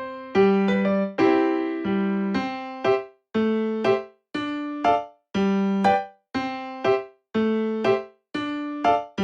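Background music: a light electric piano melody with short, separate notes about once a second, each ringing briefly and dying away.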